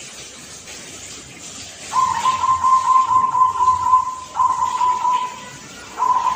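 Zebra dove (perkutut) cooing: a long beaded coo on one steady pitch starting about two seconds in, a shorter one right after it, and another beginning near the end.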